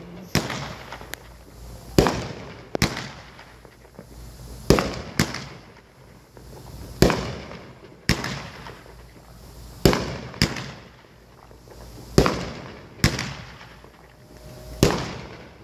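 Fireworks going off in a steady series: about a dozen sharp bangs, mostly in pairs roughly every two seconds, each trailing off in an echo.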